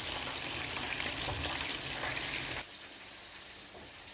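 Chicken wings deep-frying in hot oil, a steady crackling sizzle that drops off abruptly about two-thirds of the way through, leaving a fainter hiss.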